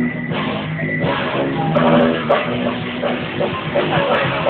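Rock music with guitar playing continuously.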